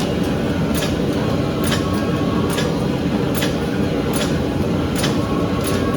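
Forge-shop machinery running with a steady roar, with a sharp tick repeating a little faster than once a second.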